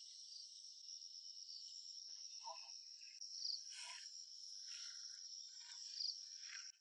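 Steady, faint, high-pitched insect chorus, with a few brief louder notes and soft short noises in the second half.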